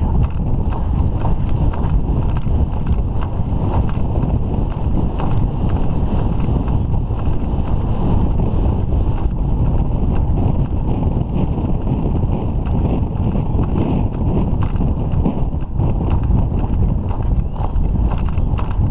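Wind rumbling steadily on the microphone of a rider's camera, over the hoofbeats of a horse moving along a sand-and-gravel bridle path.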